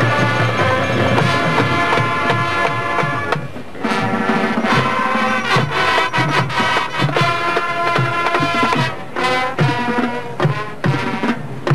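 Marching band playing: brass chords over a drumline, with a brief drop in loudness about four seconds in and a run of sharp drum hits soon after.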